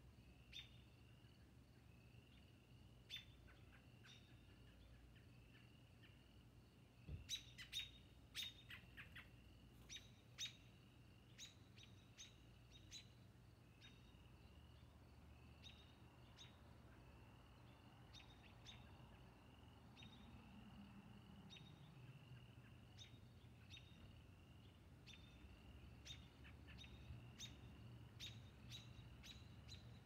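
Faint dusk chorus: a high trill repeats steadily, with sharp bird chirps in clusters about a quarter of the way in and again near the end.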